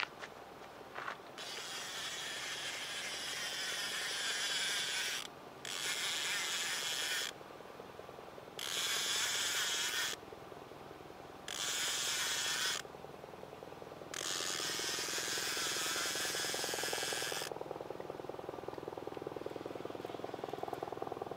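Fishing reel buzzing under the strain of a hooked catfish, in five separate runs of one to three seconds with short pauses between, then a softer, lower whir near the end.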